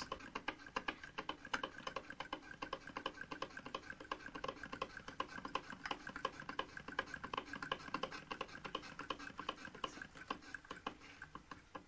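Willcox & Gibbs single-thread chain-stitch sewing machine stitching fabric as it is turned by its handwheel: a rapid, even mechanical clicking, several clicks a second.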